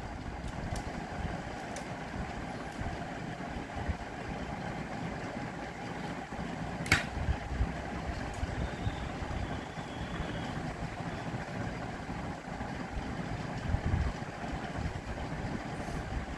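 Steady background hum of room noise, with soft handling sounds from a plastic Pyraminx puzzle and laptop keys. A single sharp click about seven seconds in.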